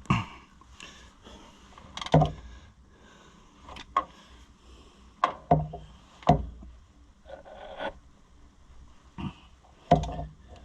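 Scattered knocks, clinks and light scrapes of hand tools and metal parts being handled during tractor reassembly, about eight separate strikes at irregular intervals.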